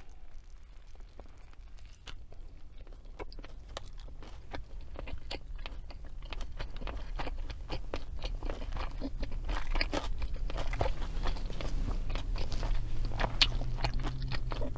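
Close-miked crunching and chewing of a fried chicken, hash brown and bacon croissant sandwich, many small crisp crackles that grow louder and busier as the chewing goes on.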